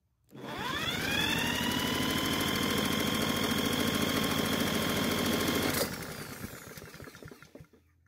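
Power drill spinning a Honda GCV mower engine over through a socket on its flywheel nut: the drill's whine rises quickly in pitch, holds steady for about five seconds with the engine's even chuffing underneath, then winds down. The engine turns over but does not catch.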